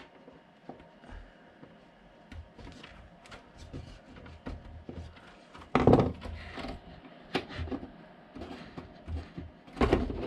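Small clicks and taps of plastic OO gauge flex track being snipped with side cutters and handled on a wooden baseboard: a snip right at the start, light taps throughout, a louder knock about six seconds in and more knocks near the end as the track is pressed into place.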